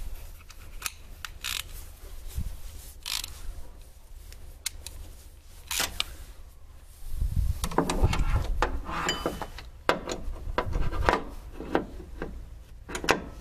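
Irregular clicks, knocks and rubbing from hands and tools handling parts in a car's engine bay, busiest and loudest about halfway through, with low thuds under the clicks.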